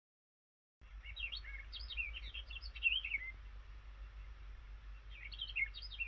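Recorded tit birdsong played as the nature-sound alarm of a wake-up light: two bouts of quick chirping, starting about a second in and again near the end, over a low hum.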